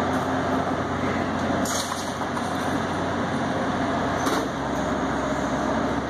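Motorized parking-garage roll-up door operator running with a steady mechanical hum as the door is worked from its wall control, with a sharp click about two seconds in and again near the end.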